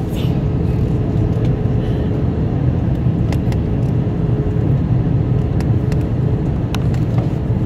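Airbus A321 cabin noise on approach: a steady deep rumble of engines and airflow with a faint steady hum. A few light ticks come and go in the middle and near the end.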